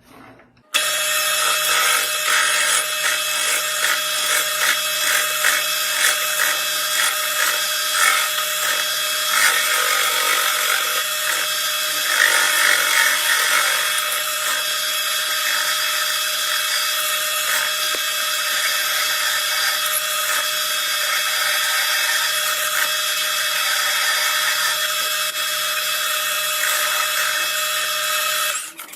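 Metal lathe cutting an external thread on old steel: steady machine hum with the scraping of the cutting tool on the work. It starts under a second in and stops suddenly near the end.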